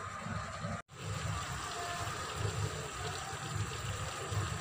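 A wok of vegetables and chicken in oyster sauce simmering on the stove: a steady bubbling hiss, with a brief break about a second in.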